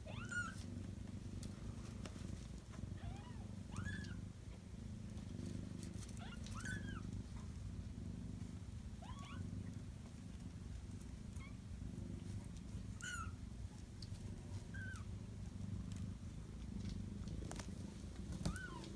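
A mother cat purring steadily, with her 11-day-old kittens giving about ten short, high mews scattered through it.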